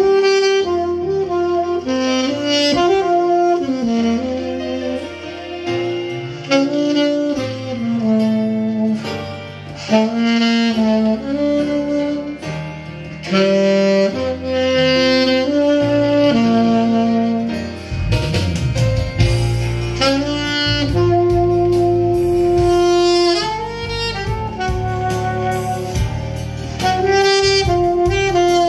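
Alto saxophone playing a slow ballad melody in sustained, legato phrases, test-played just after repair, over a backing track with a low bass line that grows fuller about halfway through.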